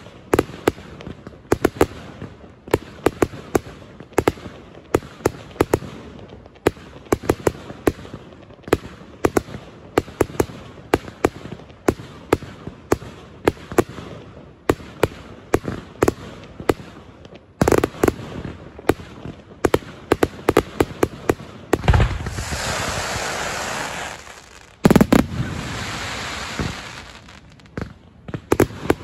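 Fireworks finale barrage: a rapid, irregular stream of sharp bangs and reports. Near the end comes a stretch of dense continuous crackle, then one especially loud bang followed by more dense crackling.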